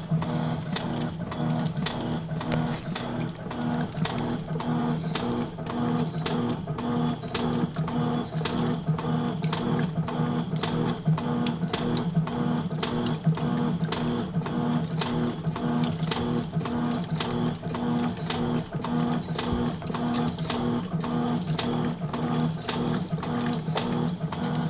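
Electrolux LM06 washing machine running its wash cycle: a steady motor hum with a regular clicking rhythm throughout.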